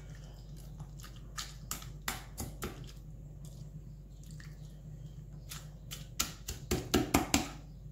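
Metal ladle tapping and clicking against a stainless steel bowl while soft boiled garden eggs are gently mashed, with a cluster of louder taps near the end. A low steady hum runs underneath.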